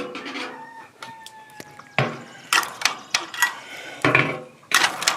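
A rooster crows once, a long held call, then a quick run of sharp knocks and rattles follows from about two seconds in.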